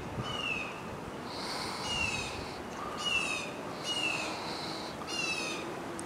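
A bird calling repeatedly, about once a second, each call short and falling in pitch.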